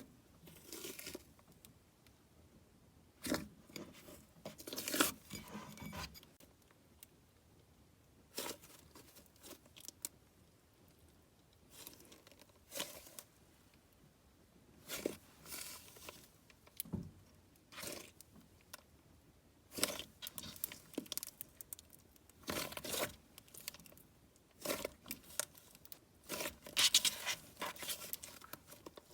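Hands squishing and stretching homemade butter slime, with irregular short bursts of sticky crackling a few seconds apart.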